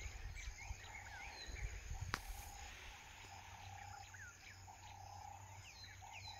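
Savanna ambience: many small birds calling in short falling whistles over a steady insect drone. A single sharp click comes about two seconds in.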